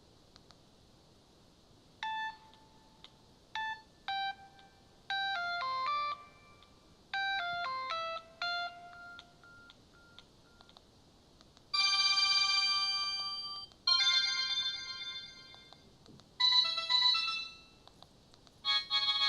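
Samsung SGH-E200 ringtones played through a Samsung SM-B310E phone's loudspeaker. About two seconds in, a short tune of plain beeping notes plays. After a pause, a fuller ringtone follows in several phrases, with several notes sounding together.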